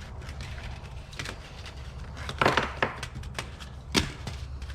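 Handling items in a box: scattered clicks and knocks of hard objects, a short clatter about two and a half seconds in and a sharp knock near four seconds, over a steady low hum.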